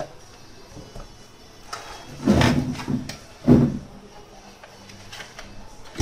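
Clunks and scrapes of a wrench and the plastic motor housing as the counter-nut on an Oster blender's motor shaft coupling is tightened, with two louder knocks about two and three and a half seconds in and faint ticks between.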